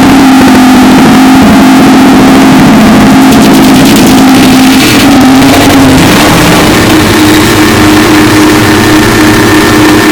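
Harsh noise music: a continuous, heavily distorted wall of noise at full loudness, with a steady drone underneath that steps slightly higher about six seconds in.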